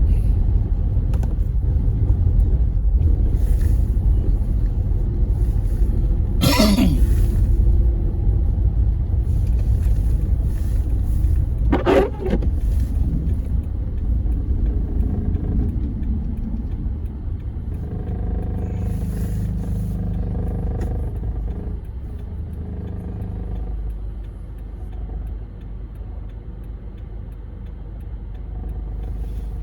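Low rumble of a car driving on a snowy road, heard from inside the cabin. Two brief sharp sweeping sounds come about 6 and 12 seconds in, and the rumble eases off after about 16 seconds.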